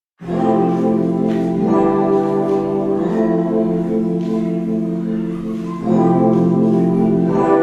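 Lo-fi hip hop instrumental starting up after a brief silence: held keyboard chords that change every second or few.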